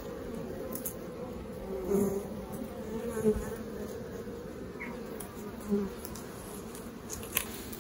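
Honeybees on an open hive frame buzzing in a steady hum, with a few brief louder buzzes.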